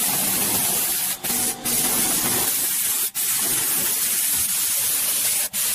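Compressed-air blow gun hissing steadily as it blows dirt and debris out of a car's seats and floor, cut off briefly a few times as the trigger is let go.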